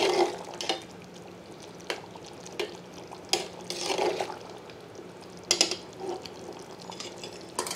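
A metal spoon stirring chicken pieces through a thick yogurt gravy in a metal pot: wet sloshing strokes with the spoon now and then scraping the pot, irregularly every half second to second and a half. A faint steady hum runs underneath.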